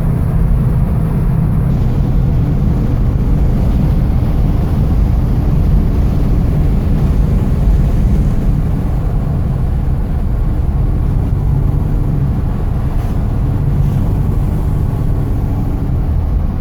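1972 Chevrolet Nova SS's V8 running through stock cast-iron exhaust manifolds and factory-style exhaust pipes as the car drives at a steady pace: a steady, low exhaust drone.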